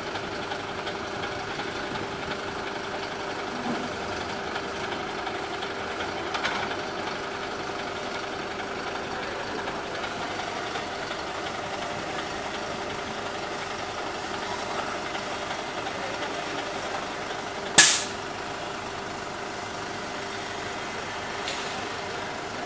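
Flatbed tow truck running with a steady mechanical hum while its hydraulic rear wheel-lift arm extends. About 18 s in, one sudden loud sharp burst that dies away within a fraction of a second.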